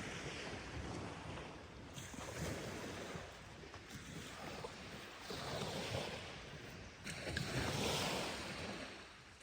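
Small waves washing onto a beach, swelling and ebbing, with two larger surges in the second half, and some wind on the microphone.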